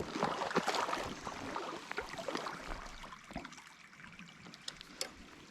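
Wading steps in a shallow, mucky trout stream, water sloshing and splashing around the legs, easing off about three seconds in to the steady trickle of the stream.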